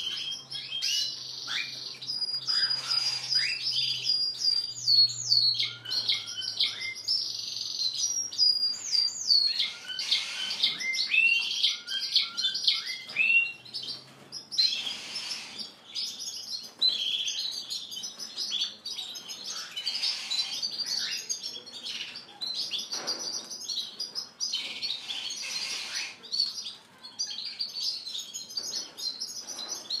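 Several Spanish timbrado and Gloster canaries singing at once. Their rolling trills, long held whistles and quick down-slurred notes overlap without a break.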